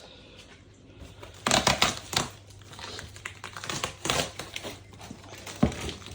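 Wrapped package being handled, its plastic and packaging crinkling and clicking in irregular clusters, over a faint steady low hum.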